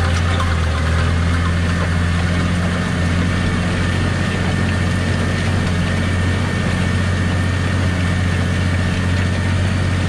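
Tractor engine running steadily under load while pulling a reversible plough through the soil, heard from inside the cab.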